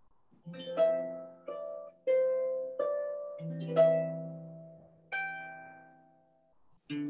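Harp played solo: a slow melody of single plucked notes and chords, each ringing on and fading, about one a second. After a short lull, a fuller chord comes in near the end.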